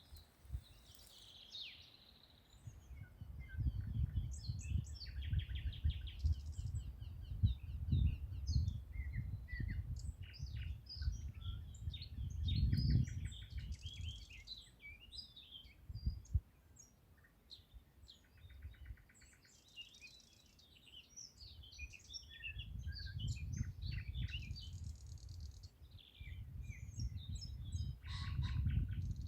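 Several songbirds singing and chirping together, a steady mix of short calls and quick trills. A low rumble comes and goes underneath for much of the time.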